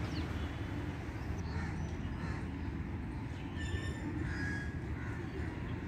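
Outdoor park ambience: a steady low rumble with a few short, faint bird calls scattered through it.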